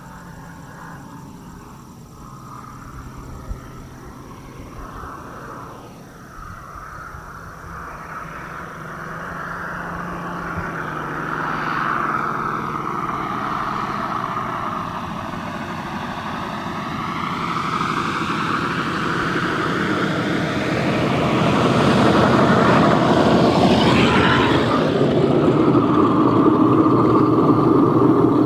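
Electric radio-control P-47 in flight: a Rimfire 65cc electric motor turning a 24x12 propeller, mixed with the simulated Pratt & Whitney R-2800 radial engine sound of its onboard RealSound system. The pitch dips and rises again in the middle, and the sound grows steadily louder toward the end.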